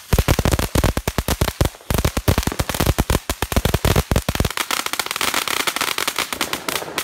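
Fireworks crackling: a rapid string of sharp pops that thins to a lighter crackle after about four and a half seconds.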